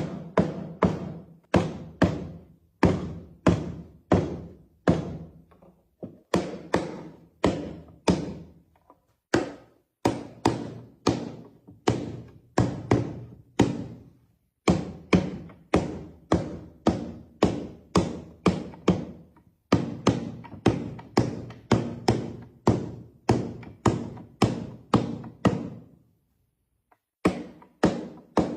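A steady run of hard knocks on wood, about two a second, each with a short hollow ring. There are a few brief pauses and a longer one near the end.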